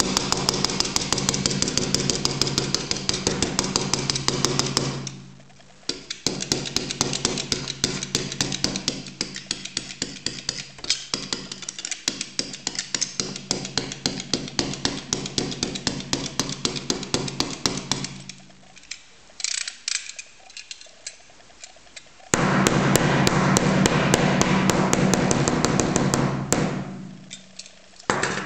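Snap-off utility knife blade scraped rapidly back and forth across a phone's flexible-glass screen protector, a fast run of short scratchy strokes. It comes in several long spells with brief pauses, the last starting about two-thirds of the way in.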